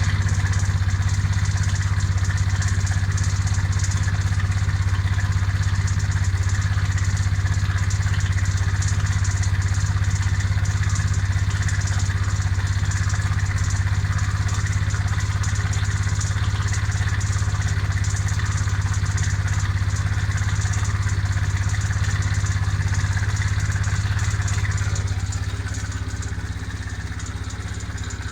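Suzuki Let's 4 scooter's small four-stroke single idling steadily with an abnormal mechanical noise, which the owner suspects comes from the chain tensioner. About three seconds before the end the idle drops slightly and gets a little quieter.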